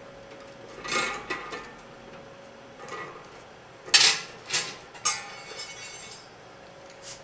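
A few sharp metallic clinks and knocks from a booster heater's heating element being unscrewed by hand out of its tank fitting, the loudest about four seconds in, some of them ringing briefly.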